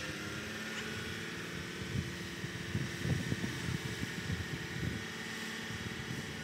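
Mobile crane's engine running steadily while it holds a suspended load, with wind gusting on the microphone in irregular low rumbles.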